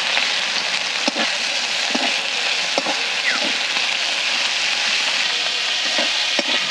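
Sliced onions sizzling in hot mustard oil in a metal kadai, with a spatula scraping and knocking against the pan every second or so as they are stirred.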